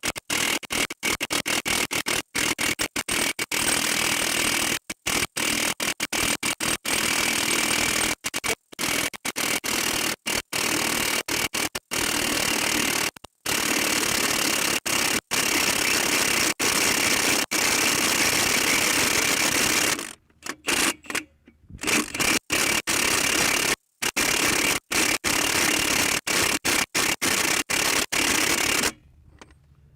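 Milwaukee M18 cordless 1-inch impact wrench hammering on a heavily rusted nut, running almost without a break. It stops briefly about two-thirds of the way through and stops again just before the end. The nut is resisting: the wrench is struggling to break it loose.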